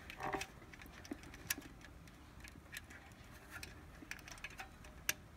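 Faint, irregular light clicks and taps as fingers and a sensor cable knock against the sheet-metal chassis of a cup sealing machine while the cable is worked through a small hole.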